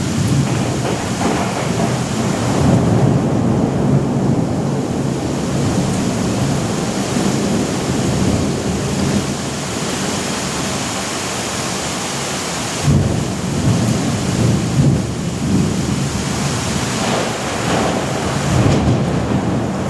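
Thunderstorm: steady rain with low rolling thunder rumbling throughout. A fresh thunderclap breaks in suddenly about 13 seconds in and rumbles on in swells.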